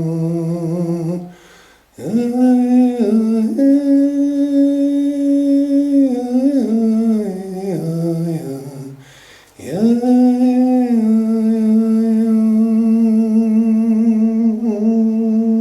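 A wordless voice humming and singing long held notes inside a small sound chamber, in three phrases with brief pauses between them, the pitch mostly level and stepping only occasionally.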